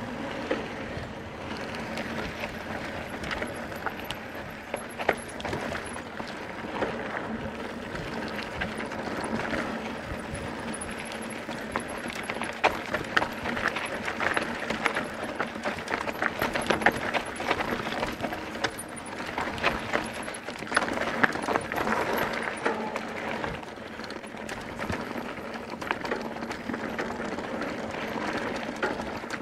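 Mountain bike riding over a dirt trail: tyres on the dirt and the bike rattling, with frequent metallic clicks and knocks throughout.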